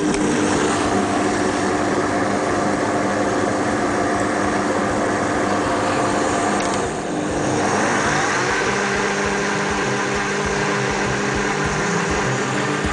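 Countertop blender running, beating eggs and sugar into a batter. The steady motor noise dips briefly and its tone shifts about seven seconds in.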